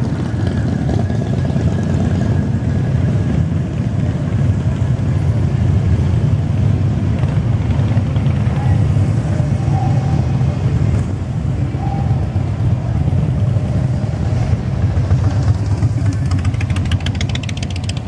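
Big cruiser and touring motorcycles rumbling as they ride slowly past along a street, mixed with passing car traffic. Near the end a bike passes close and its engine's pulsing grows louder.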